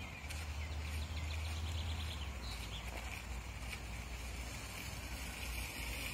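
Outdoor ambience: a low, steady rumble with faint birds calling over it, including a quick ticking trill during the first couple of seconds.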